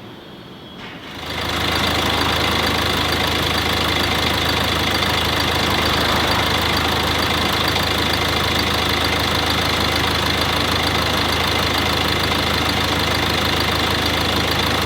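Kia Sportage QL engine running at a steady idle, coming in about a second in and holding steady.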